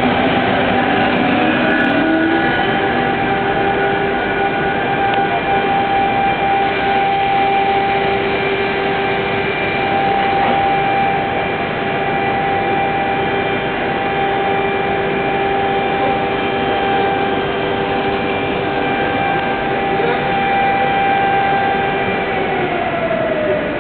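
Pendolino electric express train slowing to a halt at the platform, then standing with a steady whine of several held tones from its onboard electrical equipment. Near the end the strongest tone slides down in pitch.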